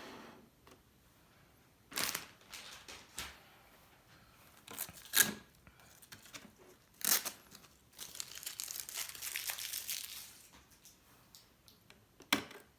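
Motherboard packaging being handled. It gives a few short, sharp rustles, then a steadier rustle lasting about two seconds, and one more sharp rustle near the end.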